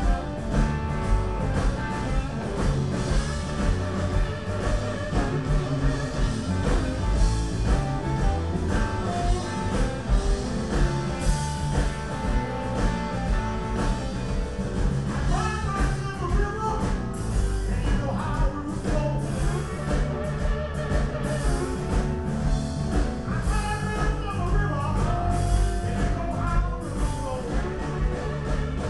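Live blues-rock band playing loud through the stage PA: guitars over a steady drum beat.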